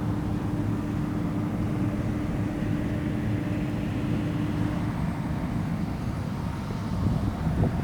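Claas Lexion combine harvester on steel tracks running steadily, its engine and machinery droning, with a steady hum that stops about five seconds in and a few louder rumbles near the end.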